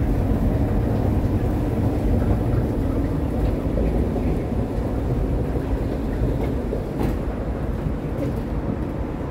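Steady low rumble of an underground U-Bahn station, easing slightly near the end.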